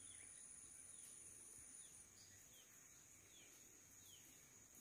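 Near silence: faint outdoor ambience with a steady high insect buzz and soft, short falling chirps repeating every half second or so. One of the high tones stops about two seconds in.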